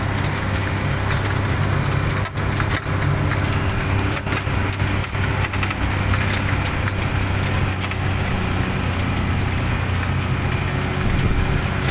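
Vehicle engine running steadily, a low hum with scattered light clicks and knocks over it.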